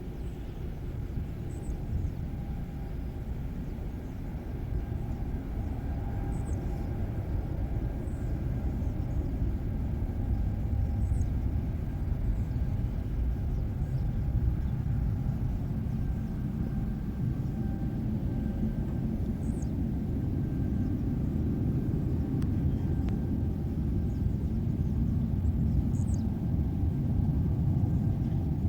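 Aircraft engine rumble heard from a distance, steady and slowly growing louder, with a faint steady whine above it and a few short high chirps.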